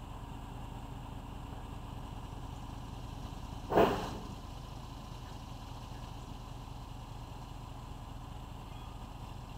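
A single loud knock about four seconds in as a metal boat stand is set under the hull, over a steady low drone.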